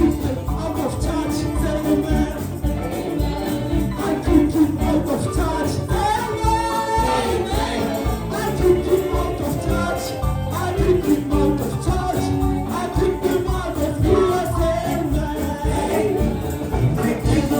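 Gospel praise song sung by a choir or group of voices over a steady drum beat.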